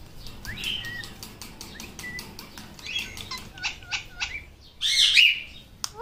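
Indian ringneck parakeet chirping in short calls, several with a quick downward hook in pitch, then a loud harsh squawk about five seconds in. Rapid sharp clicks run under the calls.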